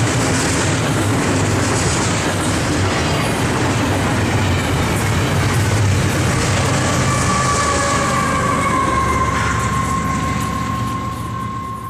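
Union Pacific double-stack freight train rolling past: a steady rumble and clatter of wheels on the rails. About halfway through, the two diesel locomotives at the rear go by with a high steady whine that drops slightly in pitch as they pass, and the train noise fades near the end.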